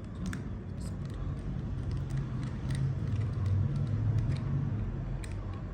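Low steady mechanical rumble that swells in the middle, with scattered faint clicks.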